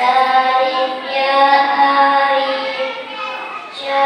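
A boy singing shalawat solo in long, held, ornamented notes. The voice fades briefly near the end, then a new phrase begins.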